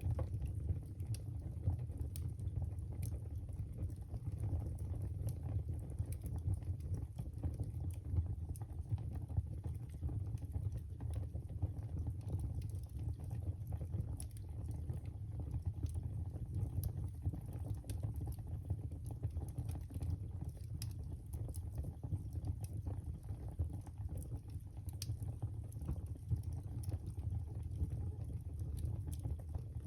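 Wood fire burning in a fireplace: a steady low rumble of flames with frequent irregular crackles and small pops.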